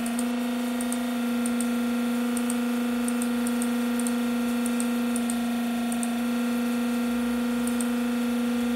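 Steady hum of the Armfield extended tube heat exchanger's running hot-water pump motor. Over it come a string of faint clicks, about a dozen, as the cold water flow setting is stepped up click by click.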